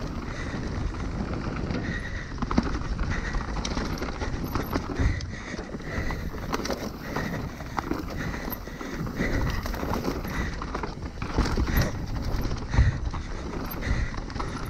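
Mountain bike riding fast down a dirt forest singletrack: steady rolling noise of knobby tyres on dirt, with irregular knocks and rattles from the bike as it hits bumps and roots.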